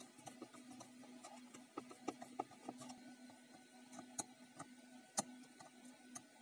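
Faint small clicks and taps of a screwdriver turning a terminal screw on a plastic dimmer housing, with a sharper click about five seconds in, over a quiet steady low hum.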